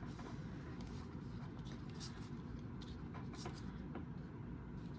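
Faint, scattered clicks and rustles of trading cards being handled and sorted by hand, over a steady low hum.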